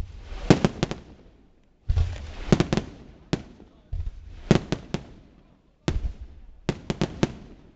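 Fireworks display: aerial shells bursting in volleys, each a low boom followed by a quick run of sharp cracks, one volley about every two seconds.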